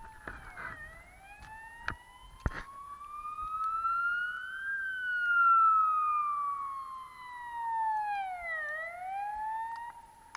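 Emergency vehicle siren wailing, its pitch sweeping slowly down, then up for several seconds, then down and up again, loudest in the middle. Two sharp clicks about two seconds in.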